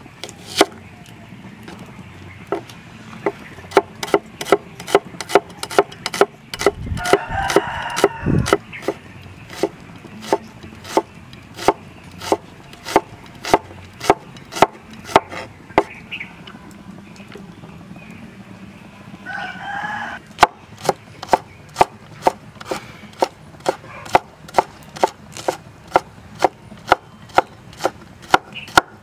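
Steel cleaver chopping shallots and then garlic on a wooden board, sharp knocks at about two a second. A rooster crows twice, about seven seconds in and again around twenty seconds in.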